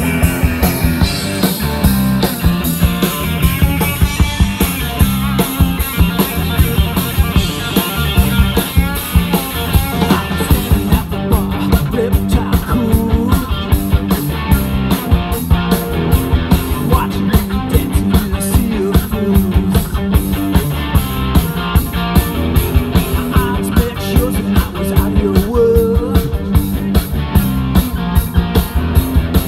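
Live rock band playing loudly: distorted electric guitar, bass guitar and drum kit driving a fast, steady beat.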